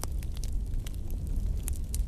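Burning wood crackling: irregular sharp pops and snaps, several a second, over a low steady rumble.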